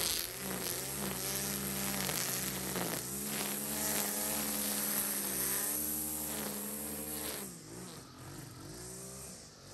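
Stihl FS 91 R two-stroke string trimmer running at high throttle while cutting tall, thick grass, its engine pitch dipping and recovering again and again as the line takes the load. About three-quarters of the way through it eases off to a lower, quieter run.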